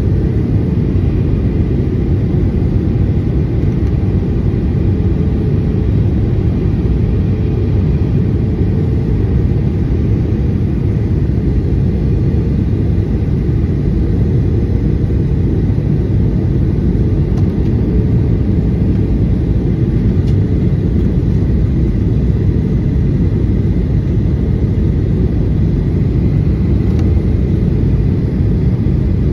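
Steady low rumble in the cabin of a Boeing 737-800 descending on approach: engine and airflow noise heard from a window seat over the wing, with a faint steady whine above it.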